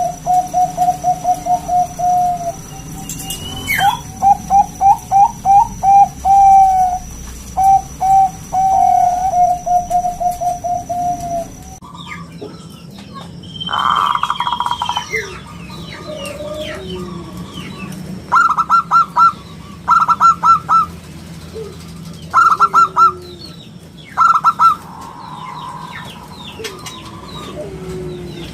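Zebra dove (perkutut) cooing in rapid runs of short, even notes. About twelve seconds in the recording changes abruptly, and the dove's notes come in shorter clusters with other birds chirping around it.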